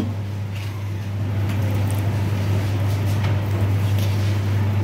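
A steady low electrical-type hum, with a few faint light scrapes and taps as a spatula spreads potato filling onto a dosa in a non-stick pan.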